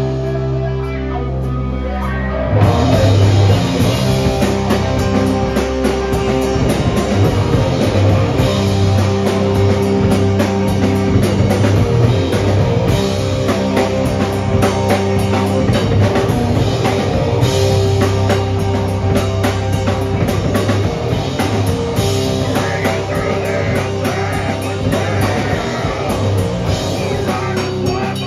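Live heavy rock band at full volume: distorted electric guitar, bass guitar and drum kit. A chord rings out for about the first two and a half seconds, then the whole band crashes in with fast, busy drumming.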